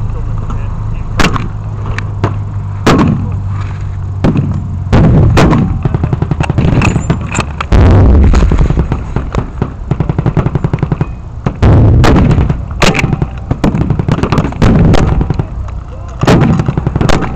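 Blank gunfire from a reenactment firefight: many sharp shots at irregular spacing, coming in quick strings near the end. Loud low rumbling comes and goes between the shots.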